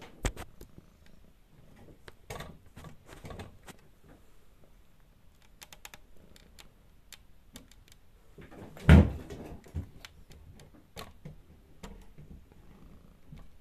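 Handling noise as the filming phone is picked up and moved into place: scattered light clicks and rubs, with one louder thump about nine seconds in.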